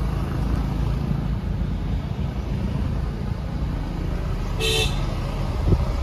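Steady low rumble of a car driving, heard from inside the cabin, with a short vehicle-horn toot near the end and a brief low thump just after it.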